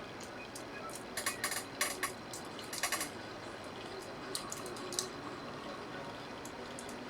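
Small, sharp clicks and taps of hand tools and phone parts being handled during a smartphone repair. A quick cluster comes about a second in, another near three seconds and a single click near five seconds, over a steady background hiss.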